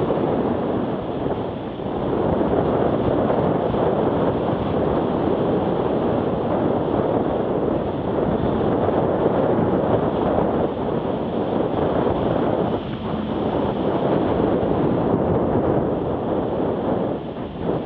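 Wind buffeting the microphone of a camera on a moving bicycle: a steady rush of noise that dips briefly a few times.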